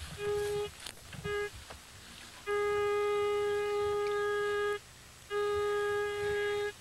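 Metal detector's steady single-pitch audio tone, switching on and off as the search coil is swept over the ground: two short beeps, then a long tone of about two seconds and another of about a second and a half, each one signalling a metal reading.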